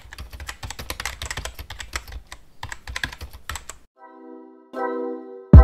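Keyboard-typing sound effect: quick irregular key clicks for about four seconds. Then a held musical chord comes in, and a deep drum hit lands near the end, the loudest sound.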